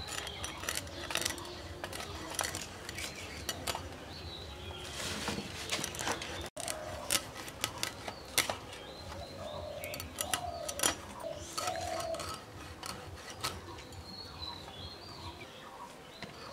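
Hilsa fish being scaled and cut on a boti, a curved iron blade fixed upright on its base: irregular sharp scrapes and clicks as the fish is rasped against the blade.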